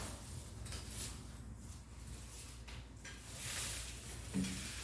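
Faint, intermittent rustling of fern fronds and soft handling noises as a large potted fern is worked by hand, over a low steady hum.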